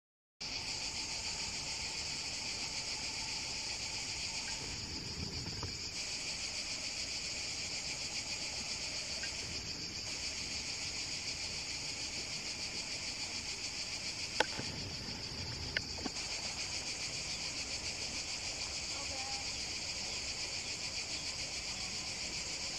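A steady, high-pitched chorus of insects shrilling without a break, starting just after a moment of silence. Two sharp clicks come close together about two-thirds of the way through.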